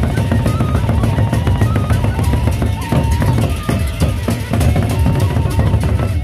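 Gendang beleq ensemble playing: large Sasak barrel drums beaten fast and densely with sticks, with a steady high melodic line above the drumming.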